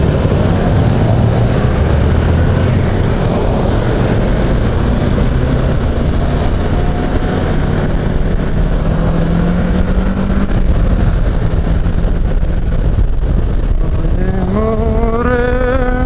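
Kawasaki Versys 650's parallel-twin engine running under way over a steady rush of wind and road noise. Its pitch climbs slowly as the bike gathers speed, then climbs steeply again about a second and a half before the end.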